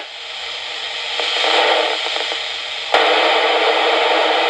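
Steady rushing noise from a Yaesu FT-817 receiver tuned to a 55 MHz FM walkie-talkie during a range test. Right at the start the noise drops and thins into a quieter, hissier sound. About three seconds in, a sharp click brings the full steady rush back.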